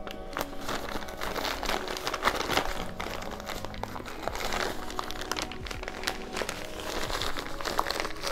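Thick paper mailer crinkling and crackling as fingers pick and pull at it, trying to tear it open. Quiet background music plays underneath.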